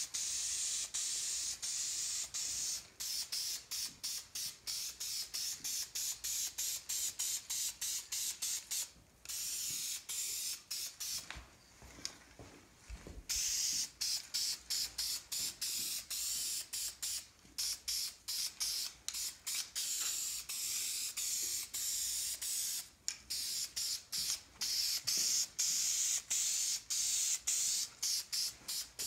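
Aerosol spray-paint can hissing as a coat of gold paint is sprayed on, in many short passes with brief breaks between them and a longer pause near the middle.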